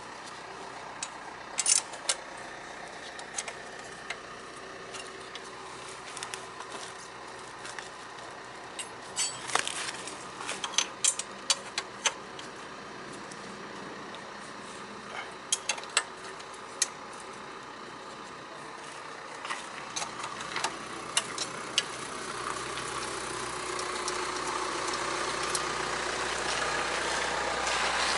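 Scattered sharp metallic clicks and clanks of hand tools at work on a scooter's rear brake, over a steady background hum that grows louder over the last several seconds.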